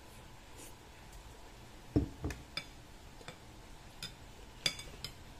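A metal spoon clinking against a ceramic bowl several times, the sharpest clink ringing briefly. About two seconds in comes a dull knock, the loudest sound, as the bowl is set down on the wooden table.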